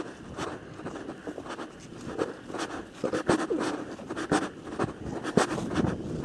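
Irregular scratching and crackling, a run of sharp clicks and scrapes at an uneven pace.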